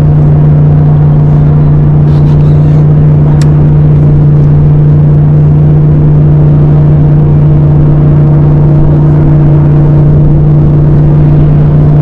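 Pontoon boat's outboard motor running at a steady speed, a loud, even hum that does not change.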